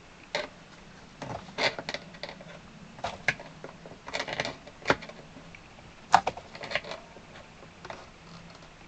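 Irregular clicks and clinks of small metal nuts and washers being fitted and tightened onto the bolts holding the reed blocks in an accordion's bass side. They come in short clusters, the loudest clink a little past the middle.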